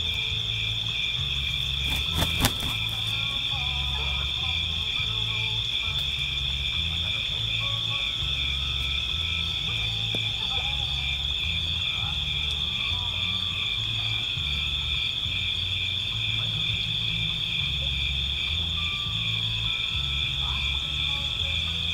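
Steady, high, finely pulsing chorus of calling insects at dusk, with two sharp clicks about two seconds in.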